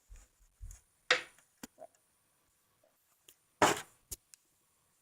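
Scattered knocks and taps of a butter knife and a slice of bread being handled on a cutting board, with a louder knock about a second in and another, slightly longer one near the end.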